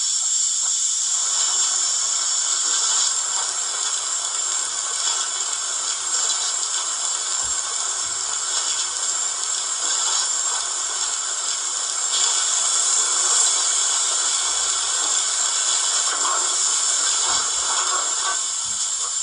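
Steady steam hiss from the YouChoos sound decoder in a Hornby Royal Scot model locomotive, played through its small speaker, with no chuffs.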